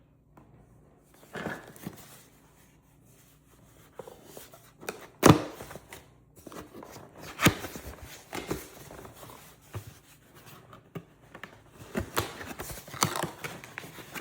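Packaging of a handheld vacuum being handled and opened: irregular scrapes, rustles and knocks, the loudest a sharp knock about five seconds in.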